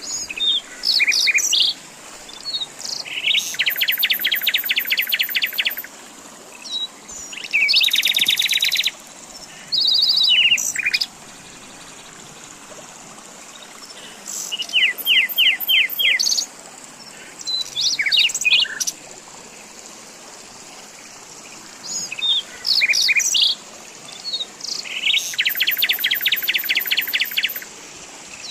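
Songbirds singing outdoors, with a phrase every few seconds. Some phrases are quick runs of high slurred notes, others are fast even trills lasting a couple of seconds. A steady faint hiss fills the gaps.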